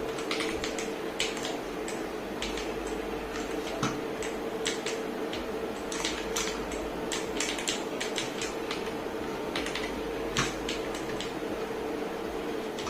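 Akko 5075S mechanical keyboard, its keys clacking in irregular presses, over a steady hum.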